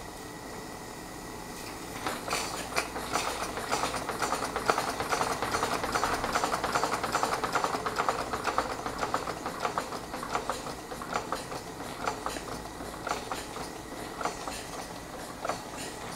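Model sternwheeler steam engine running on steam: a fast patter of exhaust chuffs and valve-gear clatter starts about two seconds in, is busiest and loudest in the middle, then slows and turns uneven as the throttle is worked.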